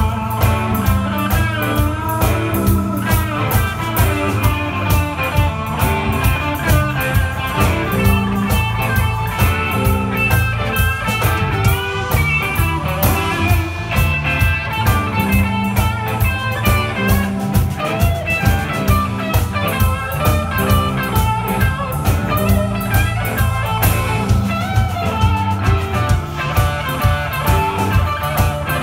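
Live blues band playing: lead electric guitar from a Les Paul-style single-cut guitar, with string bends, over bass guitar, a drum kit keeping a steady beat, and keyboard.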